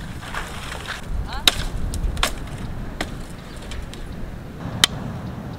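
Machete chopping wood: four sharp chops at uneven intervals, over a low steady rumble.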